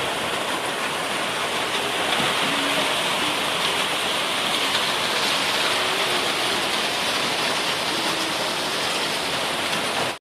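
Very heavy rain pouring down, a dense, steady hiss.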